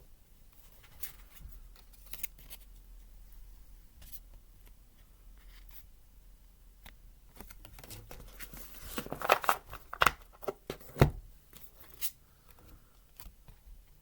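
Tarot cards and paper being handled: scattered light taps and clicks, with a louder flurry of snaps and rustling about nine to eleven seconds in.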